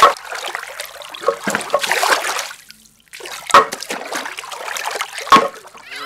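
Water splashing and trickling, broken by a brief pause near the middle, with two sharp knocks in the second half.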